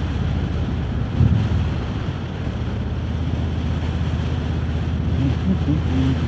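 Harley-Davidson Road King Special's V-twin engine running steadily under way, mixed with wind buffeting the rider's microphone. A short louder swell comes about a second in.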